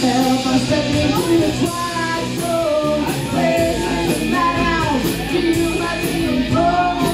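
Live rock band playing: a singer's melody over electric guitar and drums.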